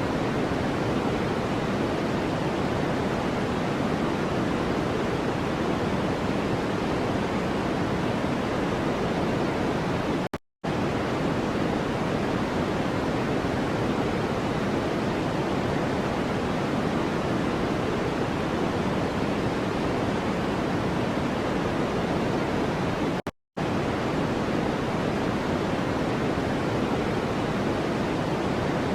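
Steady, even noise from a white-noise track, fuller in the low-mids than in the highs, with no tone or rhythm in it. It drops out to silence for a split second twice, about ten seconds in and again about thirteen seconds later.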